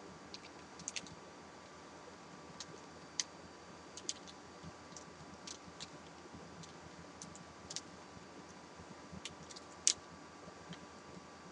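Faint, scattered sharp clicks and small crackles, about fifteen at irregular intervals, from someone eating crunchy candy-coated M&M's and handling the candy bag; the loudest click comes near the end.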